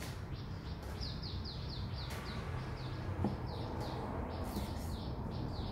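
A small bird chirping over and over in quick, short, falling chirps, several a second, with a few sharp knocks of a cleaver on a wooden chopping board.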